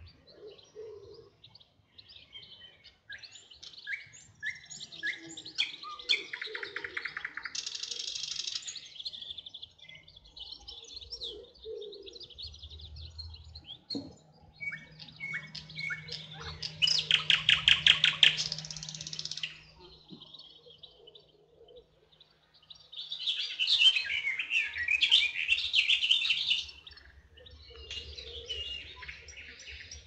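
Several songbirds singing: chirps, whistled notes and fast trills, with the loudest run of rapidly repeated notes a little past the middle and another burst of song about three-quarters of the way in.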